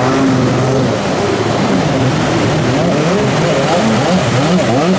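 Stand-up jet ski engines revving up and down again and again, several pitches overlapping, over the steady wash of breaking surf.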